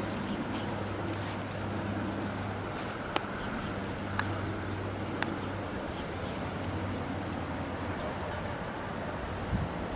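Outdoor background with a steady low motor hum that fades and returns, and three sharp clicks about a second apart in the middle.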